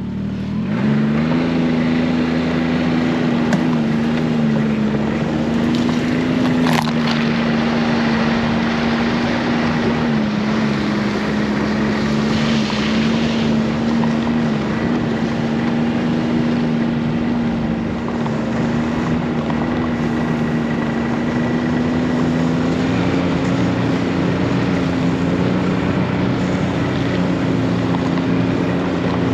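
Snowmobile engine pulling away, its note climbing in the first second, then running steadily at travelling speed with small rises and dips as the throttle shifts. Wind rushes over the microphone.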